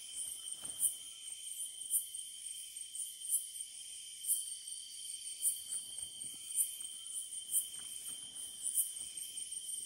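Night insect chorus: a steady high-pitched trill of crickets, with a louder pulsing call repeating about once a second.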